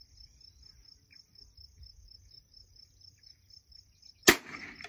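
A single .22 LR shot from a Bergara rifle about four seconds in: a sharp crack with a short ringing tail. Under it runs a steady, fast-pulsing high trill of insects.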